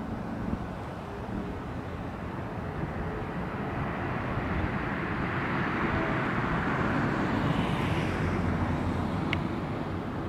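A passing vehicle: its noise swells slowly to a peak about eight seconds in, then fades.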